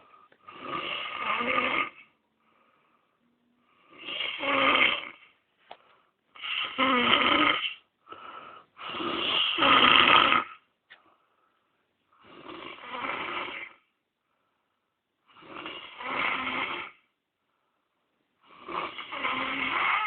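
A man snoring in his sleep: seven snores, each one to two seconds long, coming about every three seconds with near silence between them. The snore about ten seconds in is the loudest.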